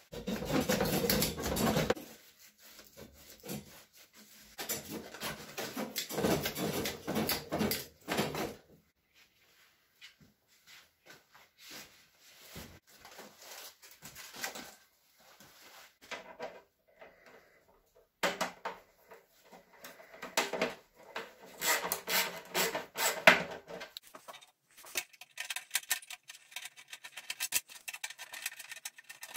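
Handling noise from a metal tractor cab door frame being shifted and rubbed against a steel work stand: irregular bursts of scraping and small knocks with quieter pauses between.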